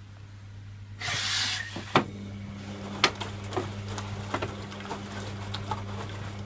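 Servis Quartz MK601 washing machine mid-cycle: about a second in, a short burst of hiss, then a sharp click, after which a steady hum starts and runs on with scattered small clicks and knocks.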